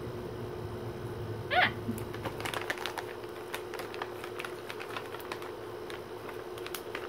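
Plastic snack bag crinkling as it is handled: a run of sharp, irregular crackles over a steady hum. About a second and a half in there is a short high squeak.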